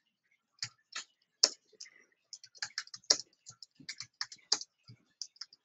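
Typing on a computer keyboard: a run of quick, unevenly spaced keystrokes as a title is typed out.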